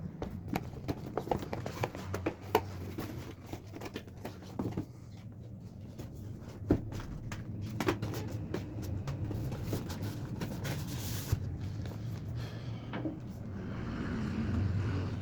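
Scattered clicks and knocks of objects being handled, most frequent in the first few seconds, with a short rustling hiss about eleven seconds in, over a low steady hum.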